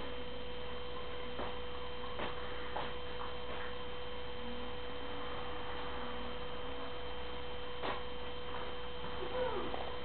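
A steady hum at one unchanging pitch, with a few faint taps and clicks scattered through it.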